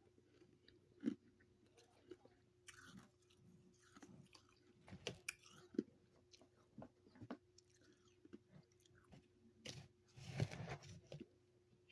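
Someone biting and chewing soft, crunchy freezer frost: irregular crisp crunches and crackles with pauses between bites, the biggest burst of crunching near the end.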